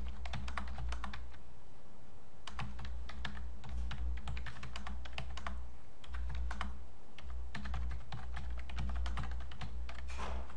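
Typing on a computer keyboard: runs of quick key clicks with short pauses between words, over a low hum that comes and goes.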